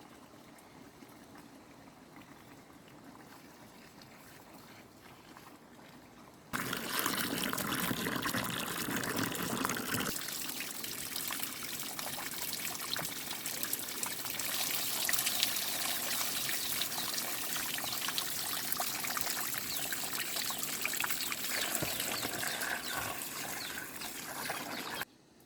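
Water running or pouring steadily with a splashing trickle, starting suddenly about six seconds in after a quiet stretch and cutting off abruptly near the end.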